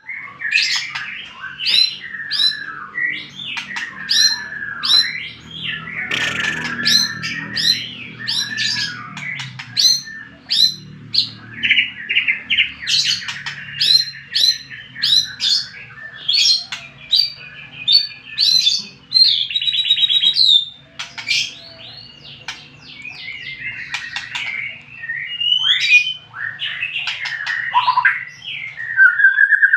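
White-rumped shama (murai batu) in full song: a fast, unbroken stream of loud, varied whistles and sharp chirps.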